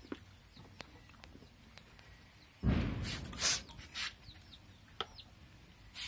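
Scissors snipping a baby's hair in scattered soft clicks, with a loud rustling bump of handling noise a little before the middle and faint bird chirps behind.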